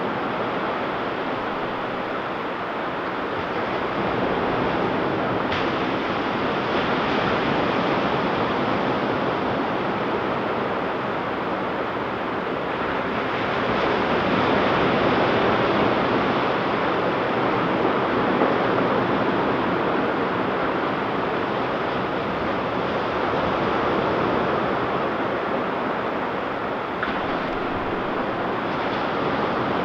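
Ocean surf breaking and washing onto a sandy beach, a continuous hiss that swells and eases slowly, loudest about halfway through.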